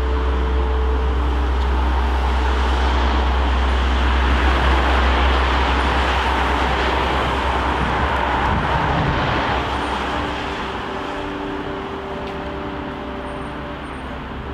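Road traffic on a city street: passing vehicles with tyre and engine noise that swells in the middle and fades over the last few seconds. Under it runs a deep low rumble that drops away about eight seconds in.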